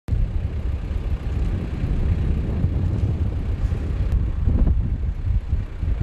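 Gusting wind buffeting the microphone: a loud, uneven low rumble that rises and falls.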